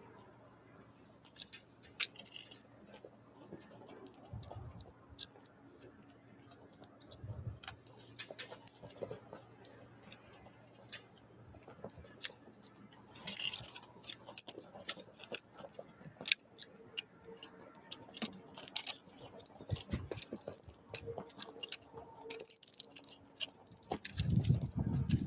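Small wild birds pecking and tapping at a feeder: irregular sharp ticks and taps, with a louder low thump near the end.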